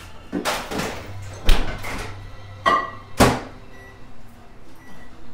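Microwave oven being worked: its door opened and shut with several sharp thuds and clunks, the loudest about a second and a half in. Near the end come a few short, high keypad beeps as the heating time is set.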